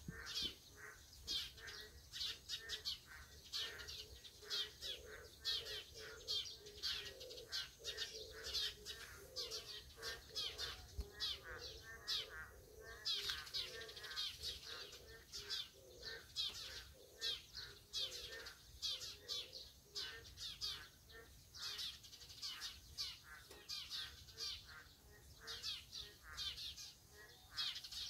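Chorus of Korean narrow-mouthed toads (boreal digging frogs) calling in wet vegetation: many overlapping calls, with short high chirps repeating about three times a second over a lower warbling drone.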